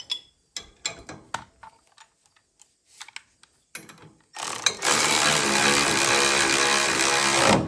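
Scattered metal clicks and taps as a tool is set on the caster wheel bolt, then a power tool runs steadily for about three seconds and stops abruptly, tightening the bolt that holds the front caster wheel.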